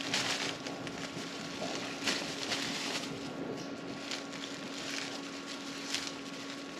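Thin plastic shopping bag rustling and crinkling in irregular bursts as it is untied and pulled open by hand, over a steady faint hum.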